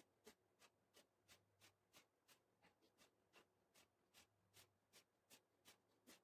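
Faint, evenly spaced short ticks, about three a second, from a man doing Hindu squats, heard in a recording sped up four times.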